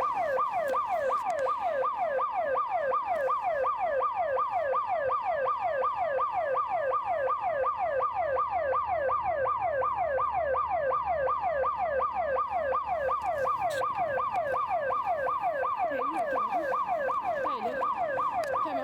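Building security alarm siren sounding without a break: an electronic yelp, each tone sweeping quickly down in pitch, repeating about two to three times a second. It was apparently set off by motion detectors.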